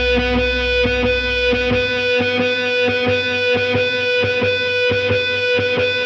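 Punk-rock band playing an instrumental passage: distorted electric guitar holds a steady chord over drum hits about three a second. The deepest bass drops out about two seconds in.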